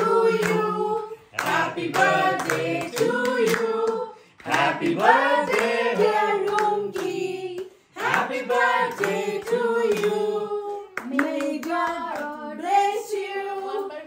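A small group of women singing a birthday song together and clapping along in time. The song comes line by line with brief pauses for breath between the lines.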